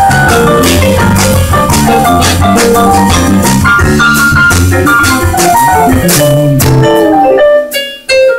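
Live jazz band playing: keyboard chords and runs over a low bass line, with drum kit and cymbals keeping time. Near the end the bass and drums drop away and the music thins out abruptly to a few high keyboard notes.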